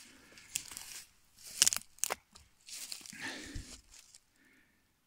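Footsteps crunching and rustling through dry fallen leaves and twigs, with a few sharp snaps in the middle and a dull thump a little later.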